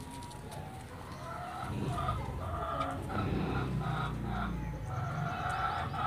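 Indian peafowl giving a series of short, repeated clucking calls, about two to three a second, starting about a second and a half in.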